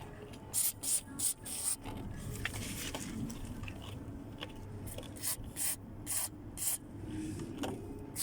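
Aerosol can of penetrating lubricant spraying in short hissing bursts onto a car's door hinges: several bursts in the first two seconds, then another run from about five seconds in. The lubricant is being applied to cure the squeaking doors.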